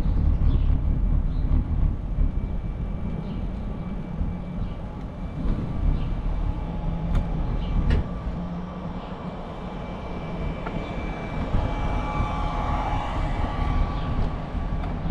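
Wind rumbling on the microphone and road noise while riding a bicycle through city streets, with a faint steady high whine that grows a little stronger near the end.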